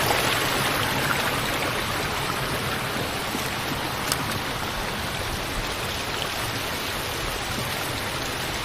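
Creek water flowing steadily, with a single short click about four seconds in.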